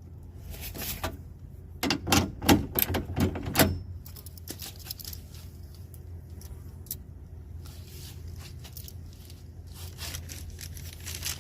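Hand work on a truck door's inside handle parts: a quick run of sharp clicks and knocks about two seconds in, then lighter ticks and scraping, over a steady low hum.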